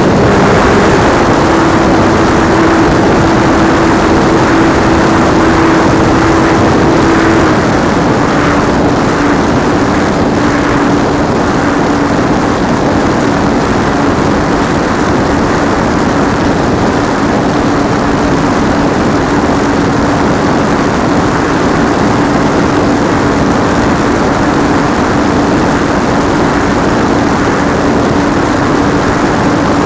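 RC model plane's electric motor and two-blade propeller running steadily in flight, heard from a camera on board, with a rush of wind over the microphone. Its steady drone drops slightly in pitch about seven seconds in, as the throttle is eased back a little.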